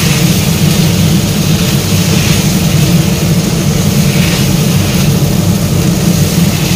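Chicken pieces frying in spice paste in a wok, sizzling while a spatula stirs them, over a steady low roar.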